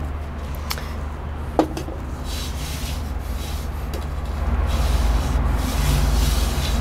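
Hands brushing and rubbing spilled potting soil across a glass tabletop, a dry scraping sound, with two light knocks in the first two seconds as the terracotta pot is moved on the glass. A steady low hum runs underneath.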